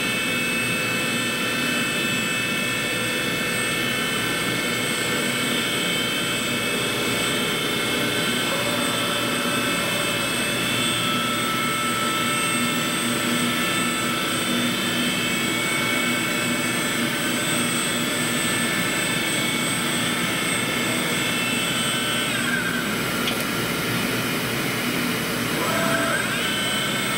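Walter Helitronic CNC tool and cutter grinder running its warm-up program at 120% speed override: a steady whine of several tones from the spindle and axis drives. The pitch falls about 22 seconds in and rises again about 26 seconds in as the motion slows and speeds back up.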